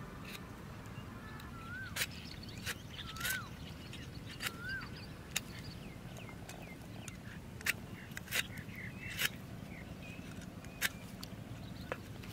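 Metal Y-shaped vegetable peeler stripping the skin off a raw green mango in short strokes, heard as scattered sharp scrapes and clicks. Birds call behind it: a rising-then-falling whistle three times in the first five seconds, and higher chirps later.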